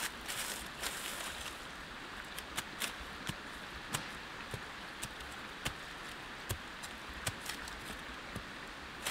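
Knife blade jabbing and scraping into dry soil and leaf litter, sharp irregular clicks and crunches every half second to a second over a steady background hiss.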